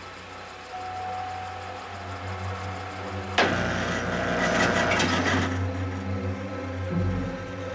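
Car engine running at idle with a steady low hum. About three and a half seconds in, a louder rattling mechanical noise starts suddenly and lasts about two seconds.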